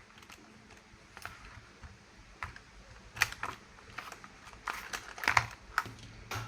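Irregular hard plastic clicks and taps, a dozen or so, bunched near the middle and toward the end, from a plastic toy vehicle being handled.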